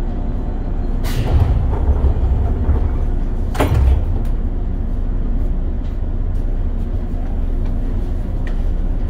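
Pneumatic sliding doors of a JR West 103 series electric train closing: a noisy burst about a second in, then the doors shutting with a knock about three and a half seconds in. The stationary train's steady low hum runs underneath.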